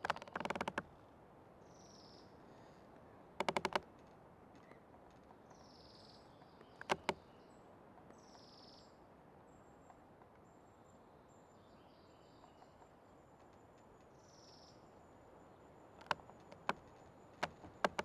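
An old tree creaking in the wind, in short bursts of rapid clicks right at the start and again about three and a half seconds in, then single sharp creaks about seven seconds in and a few more near the end. Small birds chirp faintly between the creaks.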